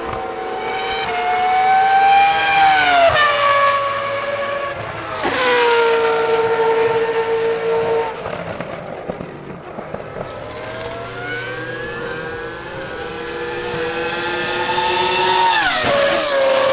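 Toro Rosso STR1's Cosworth 3.0-litre V10 Formula 1 engine at high revs on track. The pitch climbs and drops several times as the car accelerates and shifts, with a steep fall in pitch near the end.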